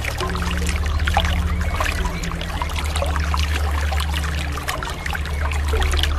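Sea water lapping and trickling in many small splashes over slow background music with low held notes.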